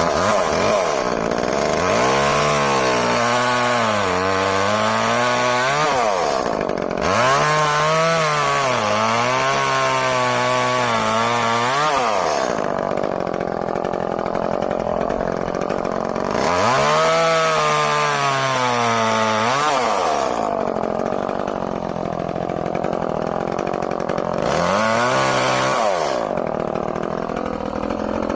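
Echo CS-305 30cc two-stroke chainsaw cutting through a tree trunk in four cuts. The engine pitch sags under load during each cut and rises again as the chain comes free, and the saw drops to a quieter idle between cuts.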